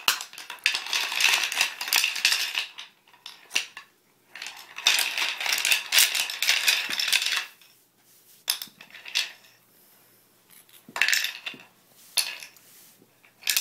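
Wooden toy food pieces and a wooden spatula clattering against each other and a toy wok. The rapid clatter comes in two long bouts, the first at the start and the second from about five seconds in, then gives way to a few scattered knocks.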